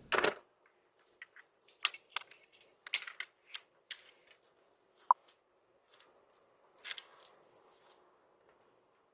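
Faint, irregular clicks and taps over the steady hiss of a Ring doorbell camera's microphone.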